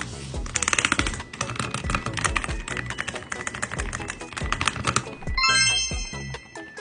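Rapid typing on a mechanical keyboard with linear switches, a dense run of quick keystroke clacks, over background music with chime-like notes about five seconds in.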